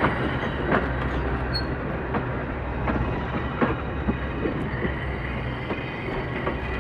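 A heritage wooden passenger carriage rolling slowly along the track. Its wheels give irregular clicks and knocks over the rail joints, over a steady low rumble.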